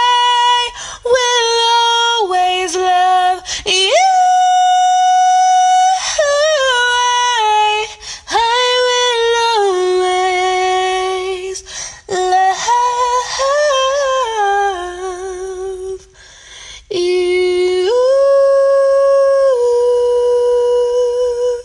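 A woman singing solo, holding long notes with a wavering vibrato and sliding through quick runs between them, with a short break about eight seconds in and another near sixteen seconds. She ends on a long held note.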